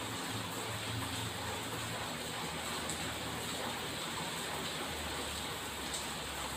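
Street traffic: a steady wash of noise under a low engine hum that drops lower about five seconds in.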